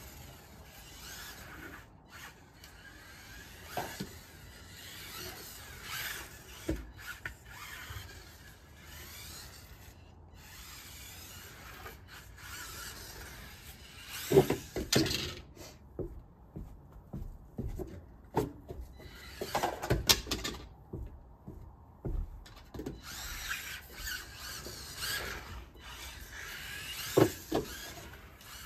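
Losi Micro-B 1/24-scale RC buggy driving on a dew-wet wooden deck: its small electric motor whines in bursts as it speeds up and backs off, with sharp knocks as the car hits or lands on the wood, the loudest about halfway through. The motor falls quiet for a couple of seconds twice, about two-thirds of the way in.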